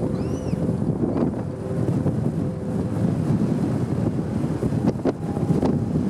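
Wind buffeting the microphone on an open chairlift ride, a steady low noise, with a few sharp clicks about a second in and near the end.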